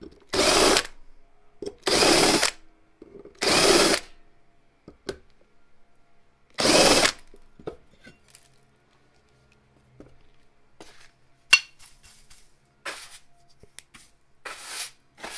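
Cordless drill spinning a bit in the holes of an aluminium plate, run in four short bursts of about half a second each. After them come light clicks, one sharp click about eleven seconds in, and a hand brush sweeping the bench near the end.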